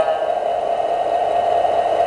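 Simulated diesel engine sound from the ESU sound decoder in a garden-scale GP9 model locomotive, running steadily through the model's small speaker as it rolls slowly.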